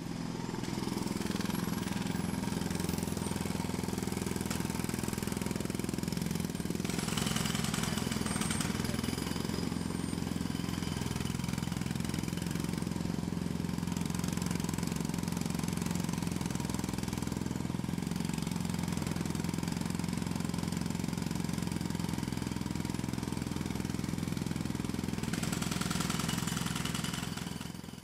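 Jackhammer sound effect: steady mechanical hammering with an engine drone underneath, going on unbroken and fading out at the very end.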